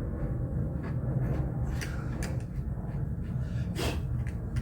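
A few short clicks and knocks of plastic car parts being handled around the fog lamp in the bumper, the loudest about four seconds in, over a steady low hum.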